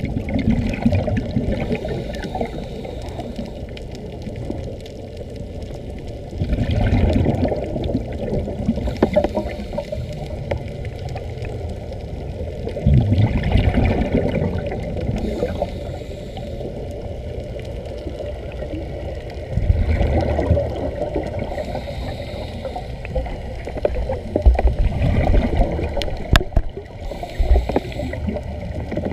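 Underwater sound heard through a camera's waterproof housing: a steady, muffled low rumble with louder bubbling bursts about every six seconds, typical of air escaping from air-fed diving helmets. There is a single sharp click near the end.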